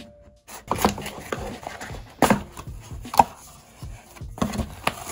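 A small cardboard box being handled and opened by hand: a run of scrapes and sharp taps of cardboard as the lid is pulled open, with about four louder knocks.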